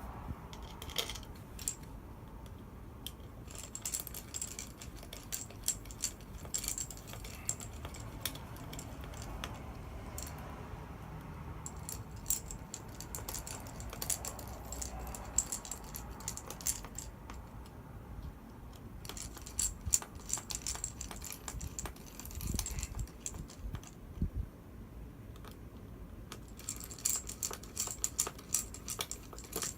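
Small metal screws and a screwdriver clicking and clinking in irregular clusters as screws are driven into an iMac's frame.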